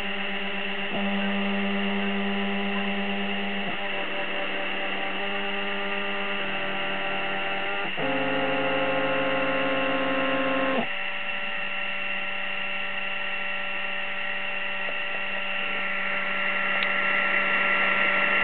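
Stepper motors of a homemade laser cutter/engraver whining as the head is driven. The pitch jumps to a new level every second or two, and is loudest from about 8 to 11 seconds in. After that a steady electrical hum remains from the idle machine.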